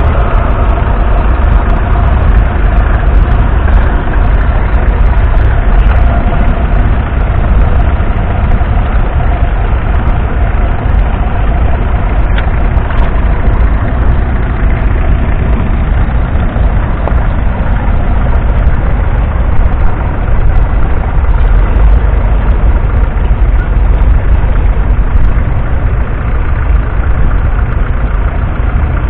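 Ferguson TEF 20's 2.1-litre four-cylinder diesel engine running steadily under load while pulling a two-furrow mounted plough through the soil.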